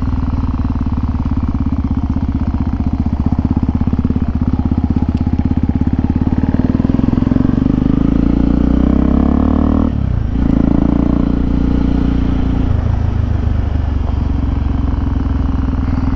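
Single-cylinder trail motorcycle engine running under way. Its pitch climbs as it accelerates, breaks off briefly about ten seconds in at a gear change, then comes back, and its note changes again about three-quarters of the way through.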